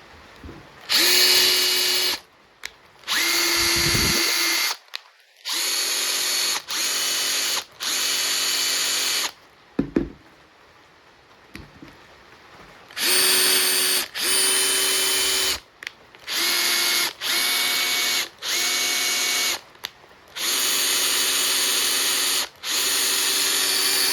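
Makita TP141D 18 V cordless 4-mode impact driver run in about a dozen short bursts of one to two seconds each, the trigger pulled and released over and over, with a steady motor whine in each burst. There is a longer pause in the middle with a single knock.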